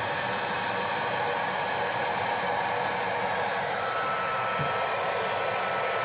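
Hair dryer blowing steadily, a constant rush of air with a faint whine, aimed into a freezer to melt the built-up frost and ice.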